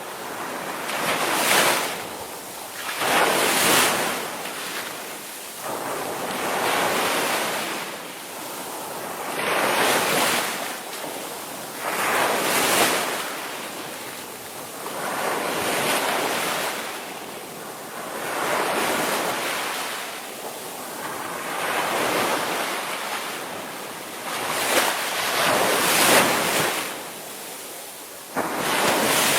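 Ocean surf breaking and washing ashore, wave after wave swelling and receding every two to three seconds, with some wind noise on the microphone.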